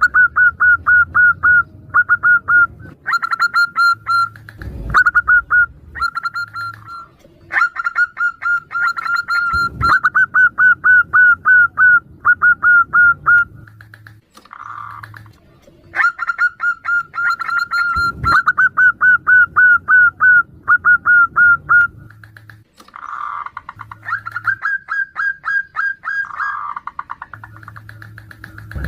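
Zebra doves (perkutut) calling back and forth, each bout a fast run of clear staccato notes, about six or seven a second. The bouts are separated by short pauses and a few lower, softer coos.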